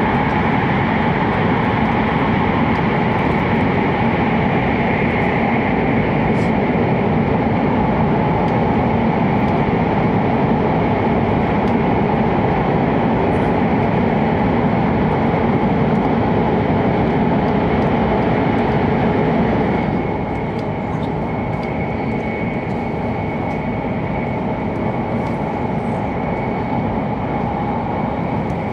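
Steady running noise of an E7-series Hokuriku Shinkansen train at speed, heard from inside the passenger car. The noise drops a little quieter about two-thirds of the way through.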